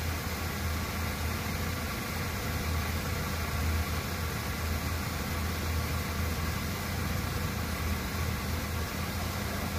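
Car engine idling, a steady low hum that does not change.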